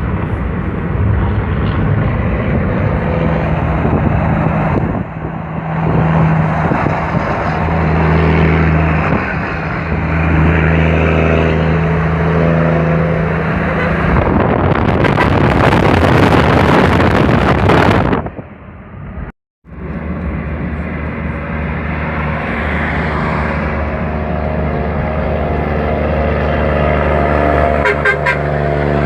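Mercedes-Benz Atego truck's straight-piped diesel engine running loud with a steady low rumble. About halfway through it turns harsher and noisier for a few seconds, cuts out briefly, then the rumble resumes.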